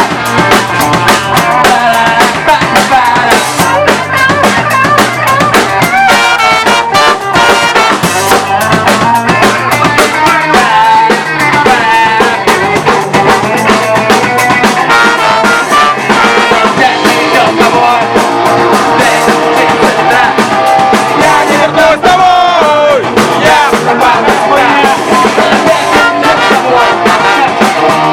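Band music: a song played with a steady drum beat and singing.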